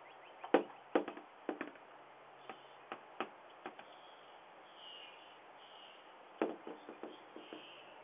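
A sandhill crane pecking the glass of a storm door with its beak, heard through a doorbell camera's microphone: irregular sharp taps through the first few seconds, then a quick run of taps about six and a half seconds in.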